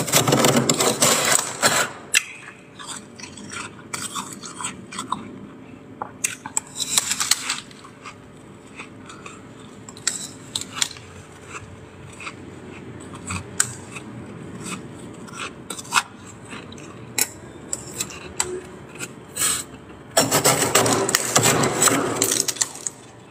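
Metal spoon scraping built-up frost off the inside of a freezer: loud rasping scrapes at the start, briefly about seven seconds in, and again near the end. In between, short crunches and clicks of the frost being bitten and chewed.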